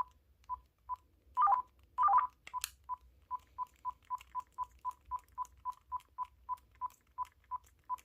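Uniden DCT648-3 cordless handset's keypad beeping as its buttons are pressed in quick succession: short beeps all at one pitch, about three a second. There are two louder warbling chirps about one and a half and two seconds in.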